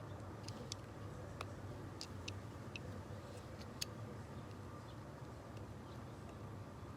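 Scattered light clicks and ticks of small hand-tool and screw handling during work on a car door lock actuator, most of them in the first four seconds, over a steady low hum.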